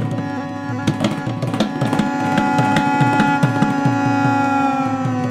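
Gourd reed pipe playing long held notes over a steady drone. A hand-played barrel drum keeps a steady beat of about four strokes a second underneath.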